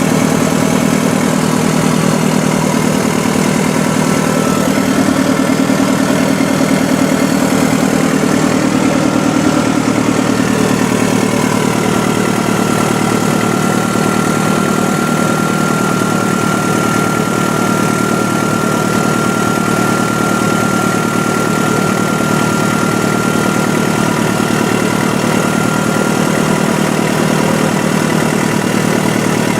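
Heavy diesel earthmoving machinery running steadily, the engine note even throughout, with a thin high whine that comes in strongest over the middle of the stretch.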